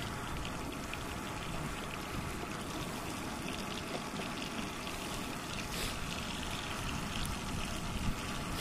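Salmon fillets sizzling steadily in butter in a frying pan on a gas camp stove, with a fine crackle, over a low wind rumble on the microphone.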